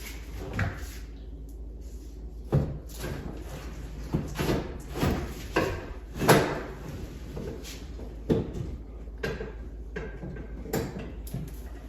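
Irregular series of clunks and knocks from handling and adjusting a TV wall mount, the loudest about six seconds in.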